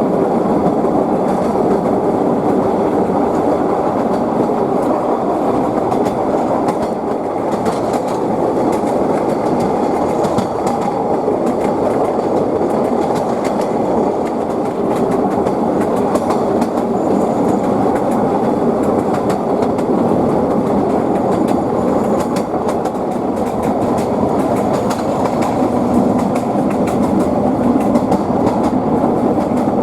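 Narrow-gauge train cars rolling along the track, the wheels knocking steadily over the rail joints over a continuous running noise.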